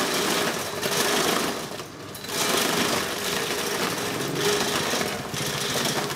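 A Takyo TK15 forage chopper running under load as leafy branches are fed into its hopper and chopped by its blades: a loud, dense rattling chop over a steady motor hum. The chopping eases briefly about two seconds in and again near the end.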